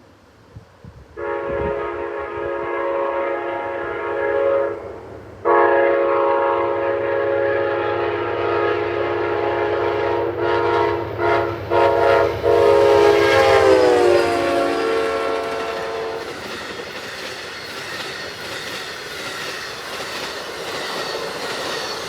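Amtrak GE P42DC locomotive's multi-chime air horn sounding a long chord in a horn show. It breaks off briefly about four seconds in, then stutters in several short blasts, and its pitch drops as the locomotive passes. Once the horn stops, the train's cars roll past with wheels clicking over the rail joints.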